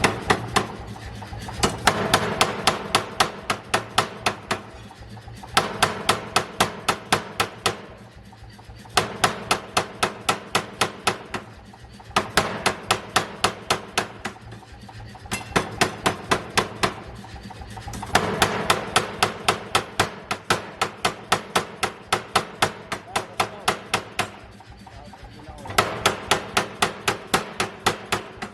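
40 kg pneumatic forging air hammer striking in runs of rapid blows, about five a second. Each run lasts a few seconds, with short pauses between runs.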